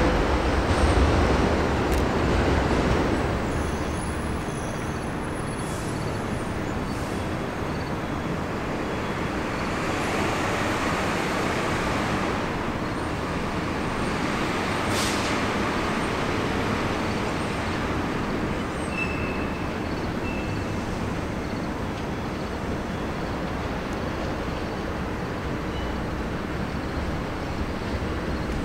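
Subway trains on an elevated line. It is loudest in the first few seconds as a train runs off, then settles into a steady distant rumble of trains and city noise, with a short hiss of air about halfway.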